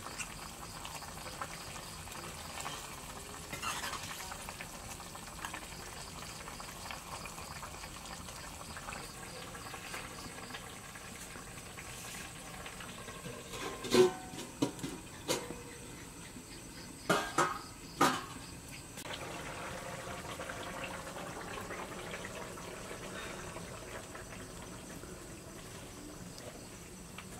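Fish curry simmering and bubbling in a steel karahi over a wood fire. About halfway through come a handful of sharp metal clanks as the pan and a steel ladle are handled.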